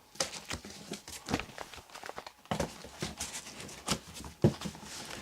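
Irregular knocks, clicks and rustles of things being handled and moved about, with a louder knock near the end.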